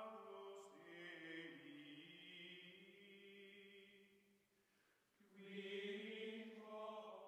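Faint background music of long, sustained sung notes, choir-like, that fade down about four and a half seconds in and swell back a moment later.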